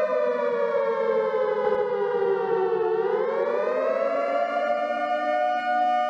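Outdoor tornado warning siren sounding a two-note chord, which sinks slowly in pitch for about three seconds, rises back within about a second, then holds steady.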